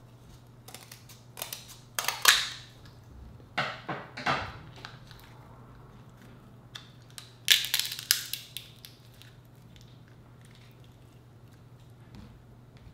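King crab leg shell being cut with kitchen scissors and cracked apart by hand: several short bursts of sharp crunching and snapping, loudest about two seconds in and again about eight seconds in, with quiet stretches between.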